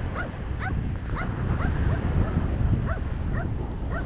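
Wind buffeting the microphone over small waves breaking on a sandy shore, with a string of short, high chirping calls from an animal about twice a second.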